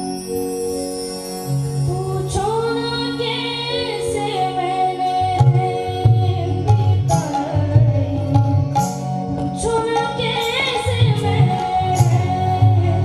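A boy singing a melody into a handheld microphone, with long wavering held notes, over instrumental accompaniment; a rhythmic beat comes in about five seconds in.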